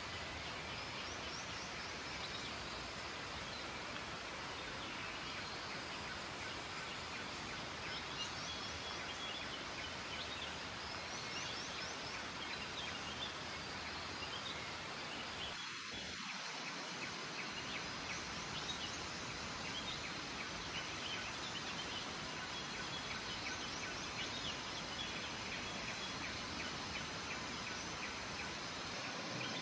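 Steady rush of a forest river, with small birds chirping over it. From about halfway an insect's high, steady buzz joins in.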